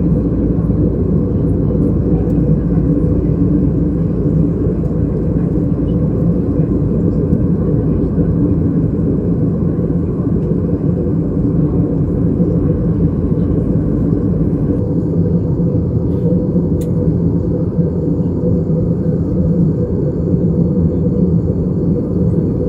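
Steady in-flight cabin drone of an Airbus A320-214, a low rumble of its CFM56 engines and the air rushing past, with a steady hum underneath. About fifteen seconds in the sound changes slightly, the deepest rumble easing off.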